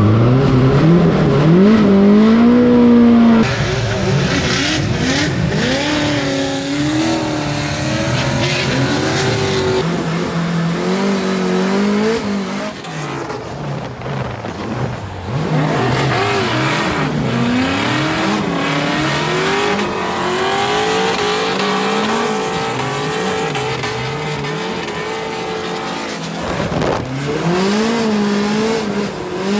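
Drift car engine revving up and down hard through a drift run, its pitch rising and falling every second or two, with tyre squeal.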